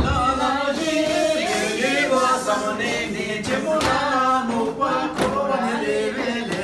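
A group of men and women singing unaccompanied in chorus, a Hyolmo folk line-dance song sung by the dancers themselves, with a few short knocks.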